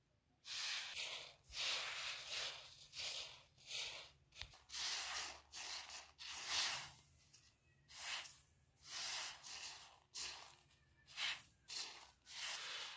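Hands sweeping and spreading loose wheat grain across a plastic sheet: a run of rustling, hissing swishes, roughly one a second, starting about half a second in.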